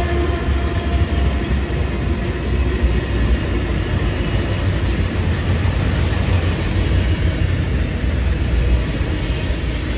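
BNSF freight train of autorack cars rolling past close by: a steady low rumble of steel wheels on rail.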